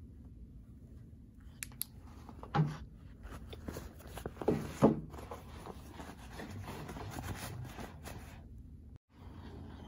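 Close handling of a canvas and leather handbag: the fabric rustles and rubs as it is turned and gathered in the hands, with a few louder bumps midway.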